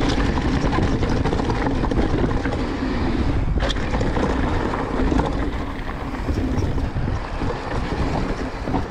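Transition Sentinel mountain bike ridden fast down a rough trail: wind rushing over the microphone, with the bike's tyres and frame rattling and chattering, and one sharp click a little before halfway. It eases off somewhat over the last few seconds.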